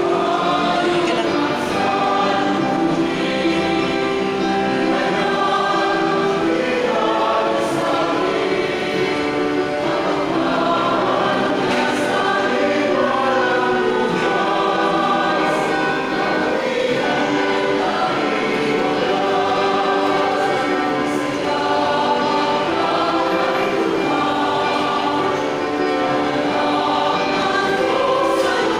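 Church choir singing a hymn in held, sustained notes.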